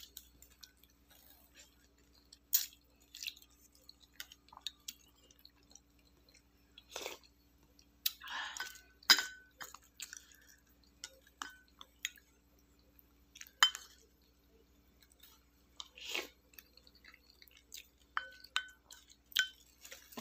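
Quiet eating sounds: a spoon now and then clinking against ceramic bowls, with short ringing clinks, and chewing in between.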